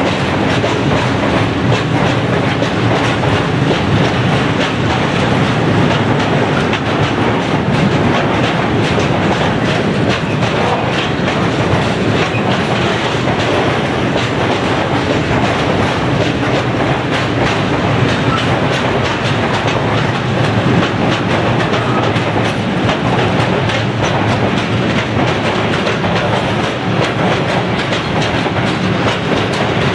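Freight train of tank wagons rolling past, a steady loud rumble with the wheels clattering in quick succession over the rail joints.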